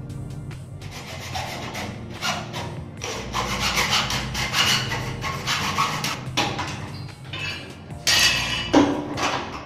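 Irregular scraping and rubbing noise, loudest near the end, over steady background music.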